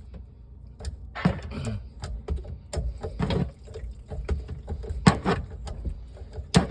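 An Allen key being worked back and forth in the hex socket on the bottom of a jammed garbage disposal, to break the stuck grinder loose. It makes irregular metal clicks and knocks, with a few short bursts of scraping.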